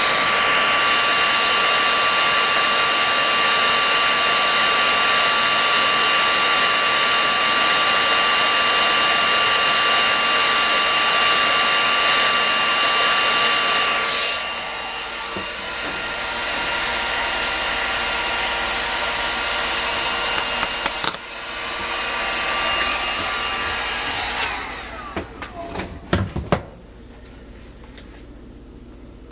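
Hot air rework gun blowing steadily, a rushing air noise with a fan whine. It gets quieter about halfway through and stops a few seconds before the end, followed by a few sharp clicks and knocks.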